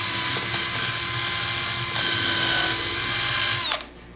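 Cordless drill running at a steady high speed with a constant whine as it bores into the wooden table frame, stopping near the end.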